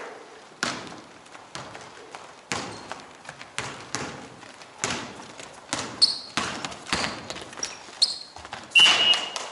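Basketball bouncing on an indoor hardwood court in about a dozen irregular thuds during play, with brief high sneaker squeaks on the floor.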